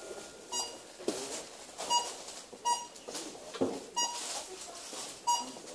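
Supermarket checkout barcode scanner beeping five times at uneven intervals as items are scanned, with a few knocks and rustles of goods being handled in between.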